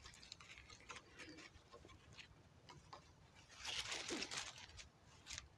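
Faint rustling and small scratches of jute twine being threaded through a lashing around two wooden poles, with a louder rustle about four seconds in as the twine is pulled through.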